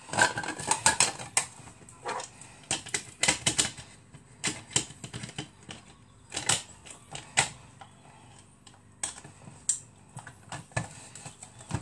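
Irregular sharp clicks and light taps of hard objects being handled, quick and close together at first, then sparser, about one every second.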